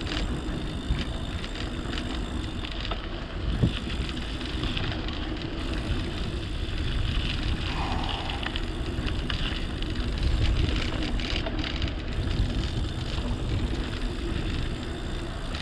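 Mountain bike riding over a rough trail: a steady rumble of tyres on stones and the bike rattling, with one sharper knock about three and a half seconds in.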